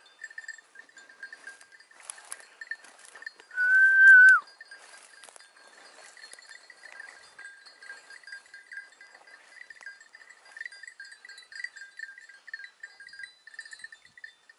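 Small bells jingling faintly and continuously. About four seconds in, one loud whistle sounds, held steady for under a second and dropping off at the end, with faint rustling around it.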